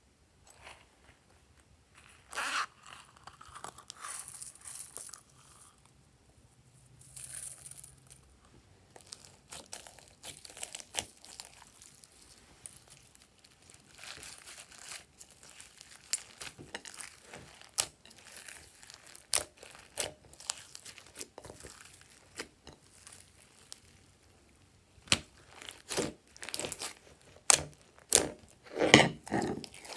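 Glossy slime mixed with glitter and sequins being squeezed and kneaded by hand: irregular wet crackles, clicks and pops, loudest near the end.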